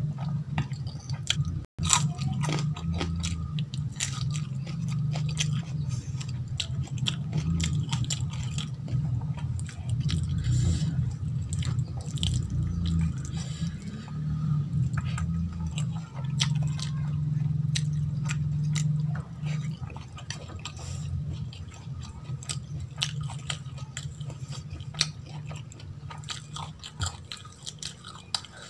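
Close-miked chewing of a mouthful of rice and curry, with many small wet clicks and smacks over a steady low hum.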